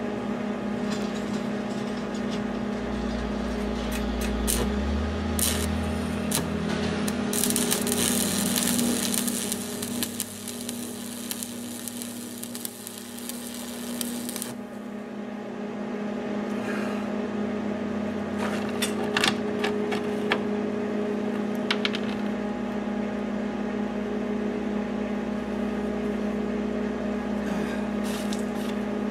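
MIG welding arc crackling and sizzling on steel for about seven seconds in the middle, stopping abruptly, over a steady hum that runs throughout.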